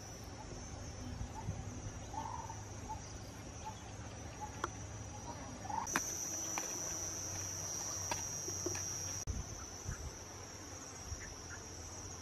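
Insects chirring in a steady, high-pitched drone that grows louder for about three seconds in the middle, with a few faint clicks.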